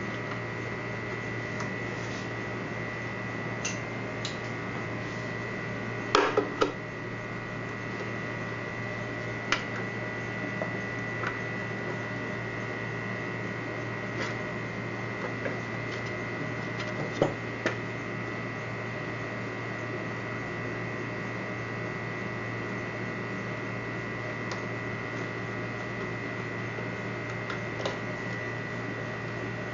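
Steady electrical hum with a high, even whine, broken by a few light clicks and taps of small parts being handled, a small cluster of them about six seconds in.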